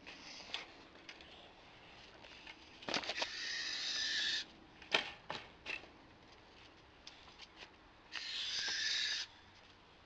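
Barn owl giving two harsh, hissing calls, each a little over a second long, the first about three seconds in and the second near the end. Between them are a few light clicks and knocks.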